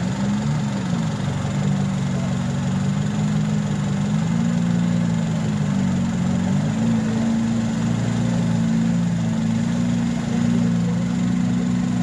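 Modified off-road 4x4 engine idling steadily, its pitch wavering slightly now and then.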